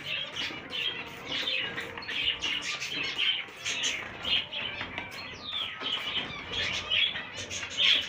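A flock of small cage birds chirping continuously, with many short calls overlapping.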